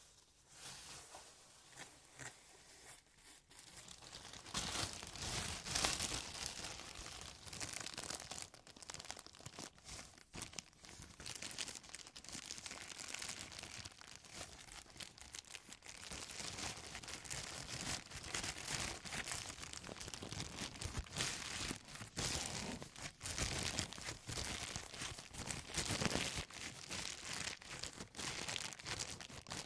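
Packaging being handled and unwrapped by hand: irregular crinkling and rustling with tearing sounds, faint at first and louder after about four seconds.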